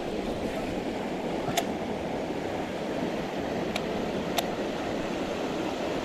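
Mountain stream water rushing steadily over rocks, with a few faint clicks.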